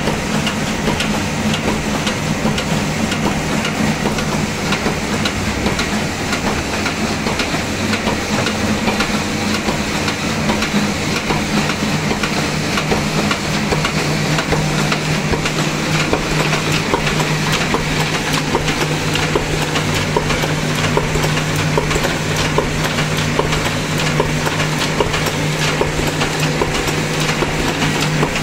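Envelope-making machine running: a dense, rapid mechanical clatter from its folding and feeding mechanism over the steady low hum of its drive, going on without a break.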